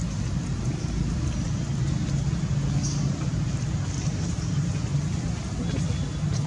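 Steady low rumbling background noise, with a brief faint high chirp about three seconds in.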